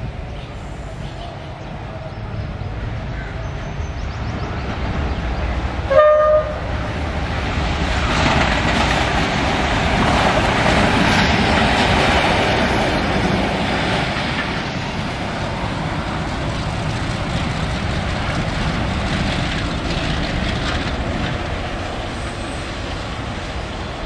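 Pakistan Railways Hitachi diesel locomotive running light with no train, passing close by. It sounds one short horn blast about six seconds in, then its engine and wheel rumble swells as it goes past and slowly dies away.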